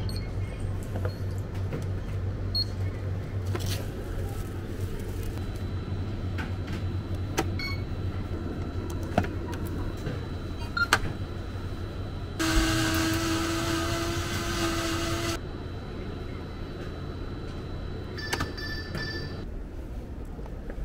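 Self-serve smoothie machine blending a cup of frozen fruit, a steady motor whine for about three seconds midway. Before it, scattered light clicks and knocks over a low steady hum.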